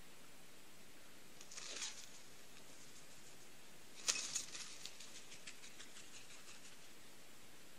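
A hawk striking at the ground and taking off again: a sharp hit about four seconds in, then a short flurry of faint wing flaps and rustling, over a steady faint hiss. A brief whoosh comes about two seconds before the strike.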